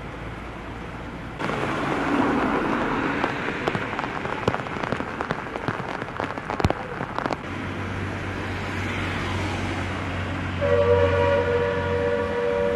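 Heavy rain pouring onto a flooded road, a steady hiss with scattered sharp crackles in the middle. Past the middle a low steady hum comes in, and near the end a vehicle horn sounds a long two-tone blast.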